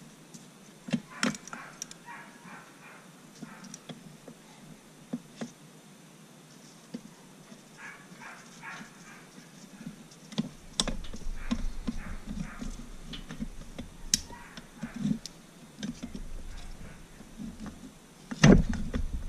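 Scattered metal clicks and knocks from pistons and connecting rods being handled and fitted into a two-stroke outboard powerhead block. A low rumble comes in about halfway, and there is one heavy thump near the end.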